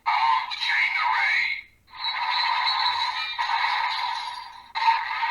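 Kamen Rider Geats DX Desire Driver toy belt playing its electronic music and sound effects through its small built-in speaker, with the Chain Array raise buckle set in it. The sound is thin with no bass, and breaks off briefly just before two seconds in.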